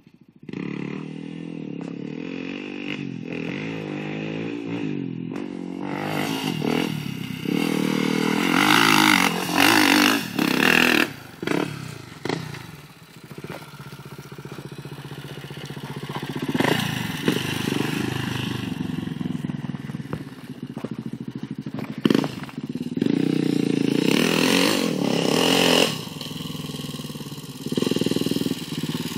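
Dirt bike engine revving in repeated surges, the throttle opening and closing as it is ridden over dirt hills, with one sharp knock about two-thirds of the way through.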